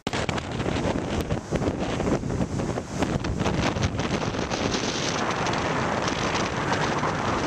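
Strong wind buffeting the microphone, over the wash of rough surf breaking on a stony shore.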